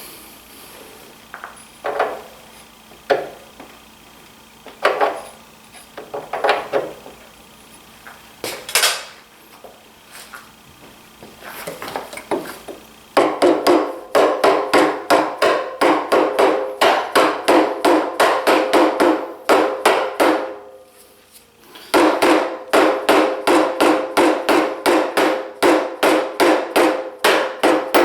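Hammer blows driving the drive pulley onto the cutterhead shaft of a DeWalt 735 planer. A few scattered knocks give way to rapid, even taps, about four a second, with a ringing metallic note. The taps pause briefly near the middle, then carry on.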